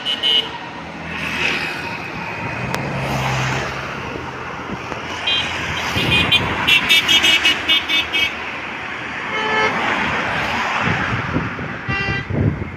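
Airbus A320neo's jet engines as the airliner passes low on final approach: a steady rushing noise that swells about ten seconds in. A rapid run of short, high-pitched toots sounds from about six to eight seconds in, with briefer runs near the end.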